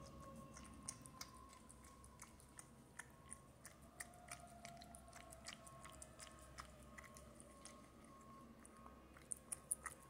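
Orange tabby cat eating wet pâté food from a ceramic bowl: quiet, irregular wet chewing and lapping clicks, a few a second, with a louder cluster near the end.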